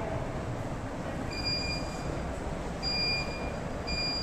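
Three short, steady high-pitched electronic beeps, each under a second, the first about a second in and the last near the end, over a steady low background rumble.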